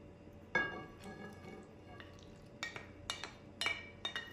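Ceramic clinks as a small dish is knocked against a large ceramic bowl to tip chopped tomato in: one ringing clink about half a second in, then a run of lighter taps in the second half.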